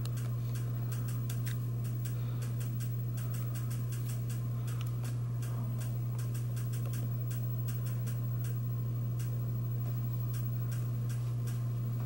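Regency ceiling fan running with a steady low hum and fast, irregular ticking, several clicks a second.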